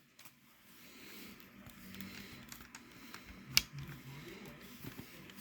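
Faint handling of a plastic CD case: light rustles and small clicks, with one sharper click about three and a half seconds in.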